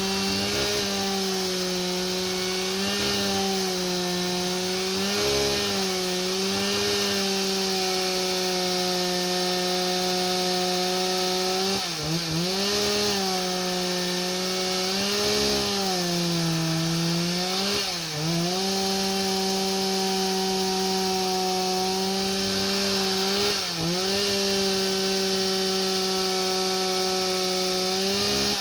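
Two-stroke chainsaw running at full throttle while milling a log on a homemade chainsaw mill. Its steady high pitch sags briefly about four times in the second half as the cut loads it, then recovers.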